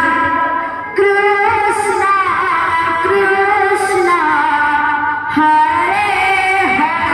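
Sambalpuri kirtan music: women singing a devotional song in long held and gliding notes, with instrumental accompaniment. The sound dips briefly before a new phrase starts about a second in.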